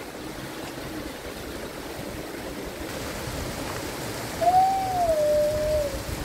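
Steady rush of running water, with one long drawn-out call about four and a half seconds in that rises and then glides down in pitch.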